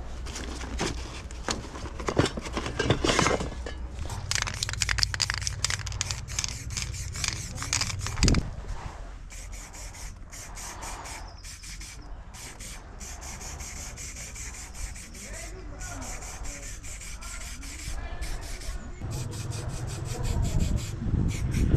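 Spray cans clattering against each other as a hand rummages through a plastic crate of them, then an aerosol spray paint can hissing in on-and-off bursts.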